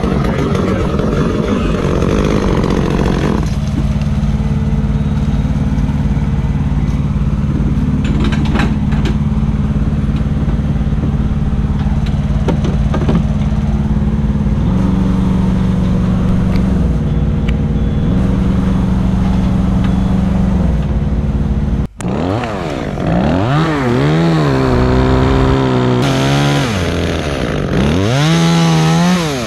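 An engine running steadily with a few shifts in pitch, then, after a sudden cut, a chainsaw revving up and down several times.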